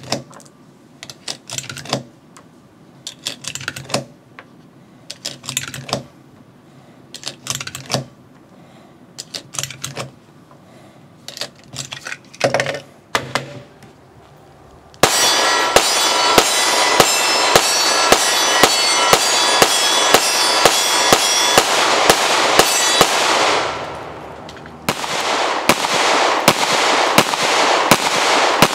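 Cartridges clicking as they are pressed one by one into a pistol magazine, then a fast string of 9mm shots from a Heckler & Koch VP9 striker-fired pistol, about two shots a second, which stops briefly and starts again near the end.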